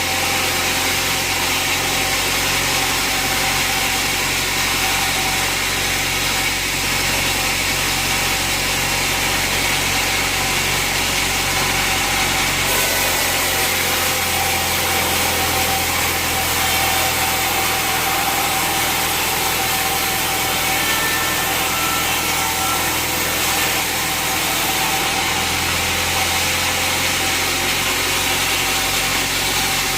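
Band sawmill running and sawing jackfruit wood: a steady machine drone with a constant tone and the hiss of the blade in the wood, shifting slightly about 13 seconds in.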